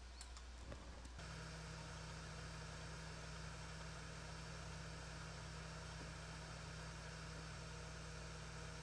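Steady low electrical hum with a hiss of background noise, stepping up slightly a little over a second in. A few faint clicks come just before the step.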